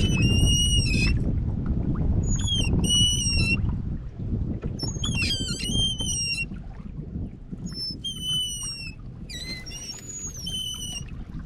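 Wind and water noise on open water around a fishing kayak, heaviest in the first few seconds. A high, squeaky, whistle-like call repeats five times, about every two and a half seconds.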